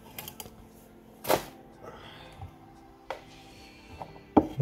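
A few sharp knocks of a kitchen knife on a cutting board, the loudest about a second in, over faint background music.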